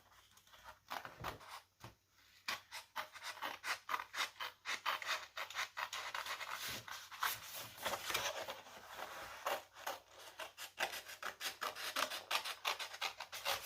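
Scissors cutting paper, snipping repeatedly around a traced handprint's fingers in a quick run of short crisp snips.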